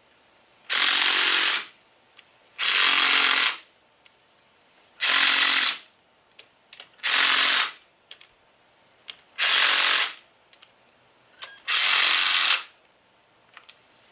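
Handheld power driver spinning bolts in, in six short bursts of about a second each, roughly two seconds apart, with small clicks between them.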